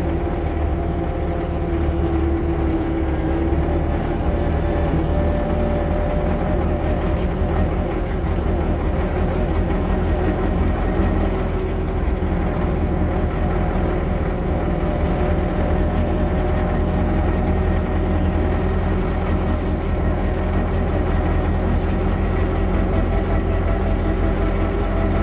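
Tractor engine running at a steady speed while driving, a constant low drone.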